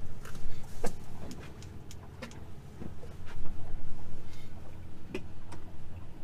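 A boat's motor running at low speed gives a steady low hum. Irregular sharp knocks and taps come every half second or so over it.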